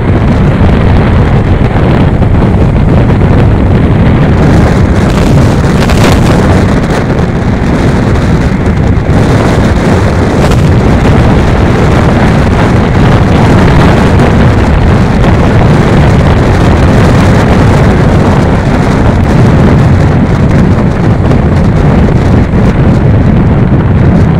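Loud, steady wind rush buffeting the microphone of a handlebar-mounted phone on a motorcycle at highway speed, with road and engine noise blended underneath.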